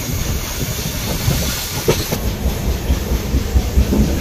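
Indian Railways passenger train running fast, heard from an open coach door: wheels rumbling and clattering on the track under a steady rushing hiss.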